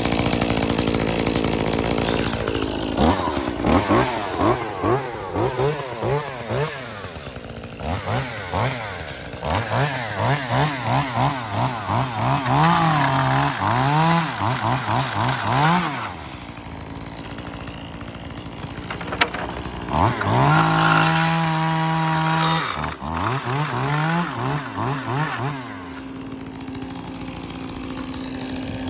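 Small two-stroke engine of an Echo CS-2511T top-handle chainsaw idling, then revved over and over in quick rising-and-falling bursts. About twenty seconds in it holds high speed steadily for about two seconds, then blips a few more times and settles back to idle.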